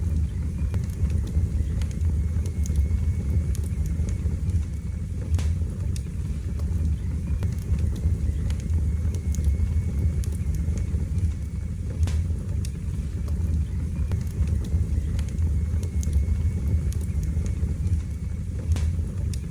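Wood fire burning in a fireplace: a steady low rumble of flames with scattered sharp crackles and pops every second or two.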